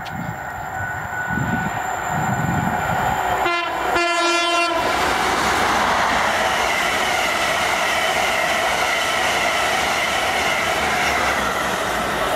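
East Coast InterCity 225 express sounds its horn about three and a half seconds in, a short blast then a longer one. It then runs past at speed with a steady loud rush and the noise of wheels on rail.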